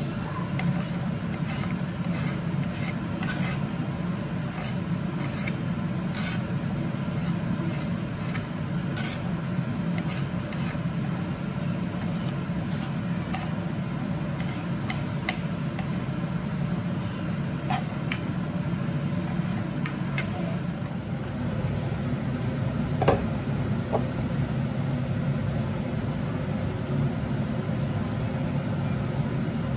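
Kitchen knife cutting tomatoes on a plastic cutting board, the blade clicking against the board every second or so through the first half, over a steady low hum. A single louder knock comes in the second half.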